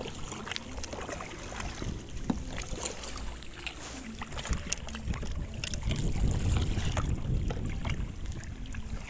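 Kayak paddles dipping and splashing in river water, with scattered drips and splashes. Wind rumbles on the microphone, heavier from about halfway through.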